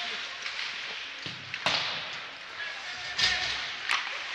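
Ice hockey sticks cracking against the puck and ice during play: three sharp cracks, one about a second and a half in, one a little after three seconds and one near four seconds, the second with a dull thud beneath it.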